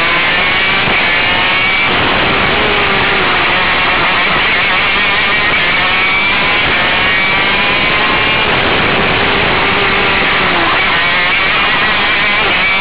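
125cc two-stroke KZ2 shifter kart engine at race pace, its pitch climbing several times through the revs and dropping back at each gear change, over a dense, steady noise.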